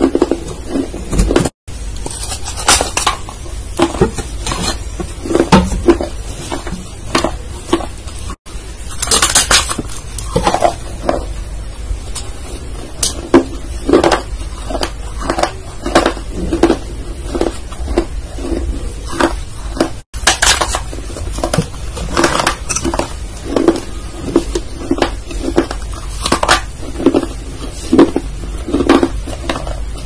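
Close-miked ASMR chewing and mouth sounds: irregular wet clicks and crunches, about one or two a second, over a steady low hum. The sound drops out briefly three times.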